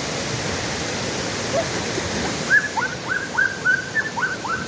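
Waterfall rushing steadily. About two and a half seconds in, a dog starts whimpering in a quick run of short, high whines that each drop in pitch.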